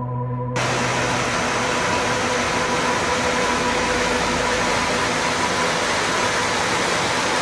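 Stream water rushing over and between boulders, a steady full rush that cuts in suddenly about half a second in and stops abruptly near the end. Faint steady tones of ambient music carry on underneath.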